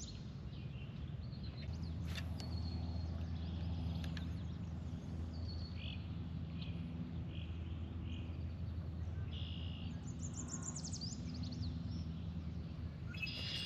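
Birds chirping and calling in short high phrases, with a quick descending trill about ten seconds in, over a steady low hum.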